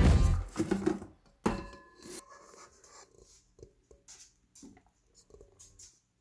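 Background music ends just after the start; then a few light knocks and clinks of kitchen utensils, one about a second and a half in with a short ring.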